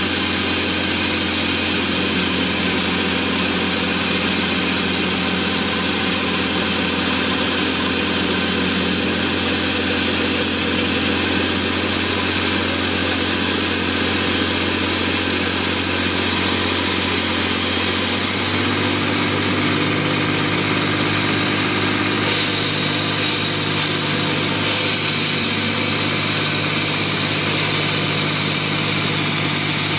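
Diesel engine of a JHD-900 walk-behind concrete saw running steadily. Its tone changes about 18 seconds in, and there is more hiss from about 22 seconds.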